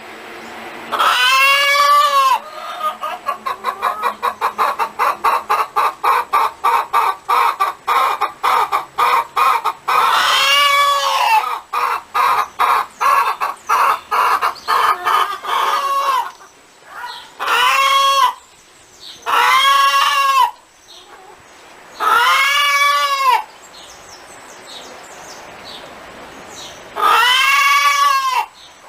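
Hen cackling: a long run of quick short clucks, about three a second, broken by about six long, drawn-out squawks that rise and fall in pitch.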